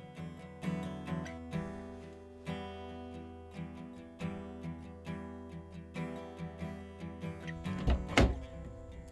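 Background acoustic guitar music, strummed and plucked, with a brief loud thump about eight seconds in.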